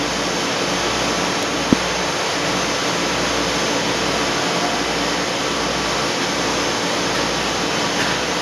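Pieralisi olive oil mill machinery and its electric motors running, a loud, steady mechanical din with a faint hum through it. A single sharp click comes a little under two seconds in.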